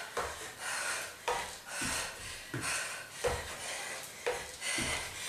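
Step-up jumps onto a wooden step stool: a trainer landing on the wooden step and back on the floor, a thud with a scuff roughly every two-thirds of a second, with puffs of hard breathing in the same rhythm.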